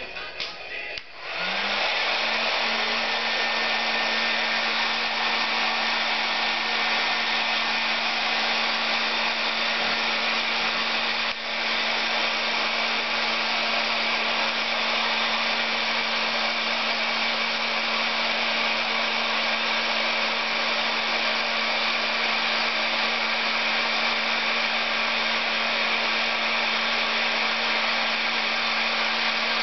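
Electric heat gun switched on about a second in: its fan motor spins up with a short rising whine, then runs and blows air steadily.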